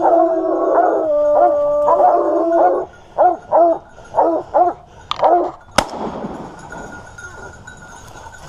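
Pack of Grand Bleu de Gascogne hounds baying at a wild boar held at bay, with long overlapping howling bays, then short separate barks. About six seconds in, a single sharp gunshot cracks out, and the baying stops.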